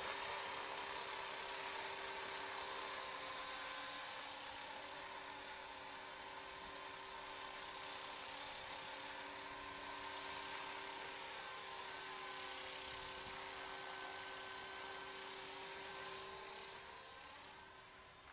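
A 450-size electric RC helicopter flying, its motor and rotor making a steady high-pitched whine that fades near the end as it flies off.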